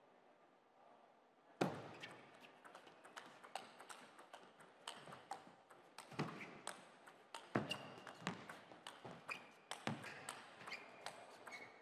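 Table tennis rally: the ball clicking back and forth off the rackets and the table at a quick, uneven pace. It starts after about a second and a half of quiet, with a sharp first hit.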